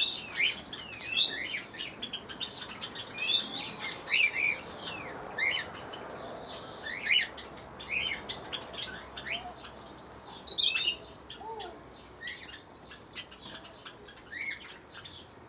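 Aviary birds chirping: a run of short, sharp, high calls that come irregularly, several close together at times, over a faint steady hiss.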